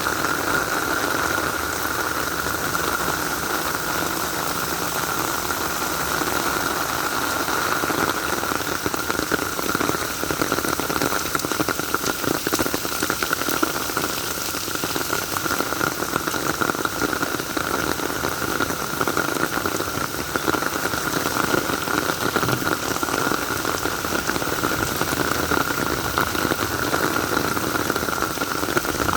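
Steady heavy rain falling: a dense, even hiss of drops with fine patter, and a steady higher note running through it.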